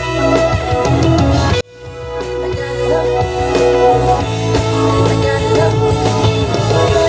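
Band music with guitar, bass and drums. The sound cuts out abruptly about a second and a half in, then swells back up over the next second.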